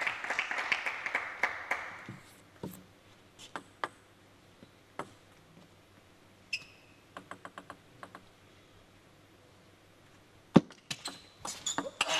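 Applause fading out over the first two seconds, then a quiet spell with a few light taps of a celluloid table tennis ball. About ten and a half seconds in, a sharp crack as the ball is struck, then quick clicks of the ball off rackets and the table as a rally gets going.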